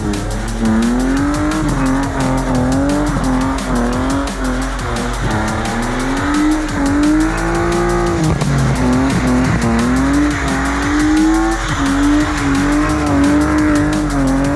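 BMW E36 328i's straight-six engine held at high revs, its pitch rising and falling every second or so, as the car drifts sideways with its rear tyres sliding. Fast-beat electronic music plays over it.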